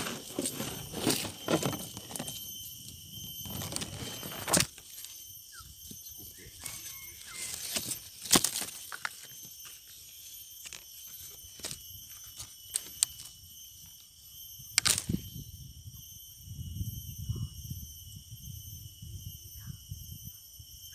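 A steady, high-pitched drone from a forest insect chorus, broken by repeated sharp clicks and rustles of handling close to the microphone, with a low rumble of handling noise near the end.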